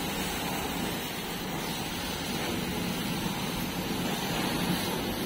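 Hose jets of water spraying onto a tractor and a backhoe loader and splashing on wet concrete: a steady, even hiss of spray.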